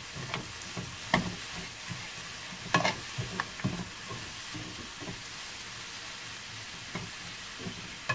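Small dried shrimp and sunflower seeds stir-frying in a frying pan, stirred with a wooden spatula and a metal spoon. There is a steady sizzle, with scraping and occasional sharp clicks of the utensils against the pan, most of them in the first few seconds.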